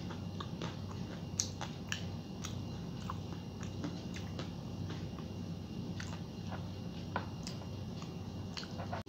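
Close-up mouth sounds of someone eating ripe mango by hand: wet chewing and lip smacks, with short sharp clicks scattered irregularly throughout, over a steady low hum.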